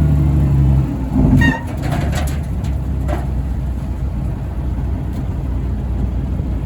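Roll-off truck's engine running under load as it hauls a full scrap dumpster; the steady engine note shifts about a second in and settles into a low rumbling drone, with a few brief high-pitched sounds over it.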